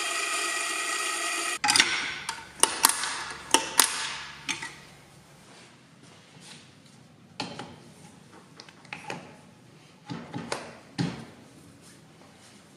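Espresso grinder motor running with a steady whine and cutting off about a second and a half in. It is followed by a run of sharp metallic clicks and knocks, then a few quieter knocks, from the grinder and coffee gear being handled.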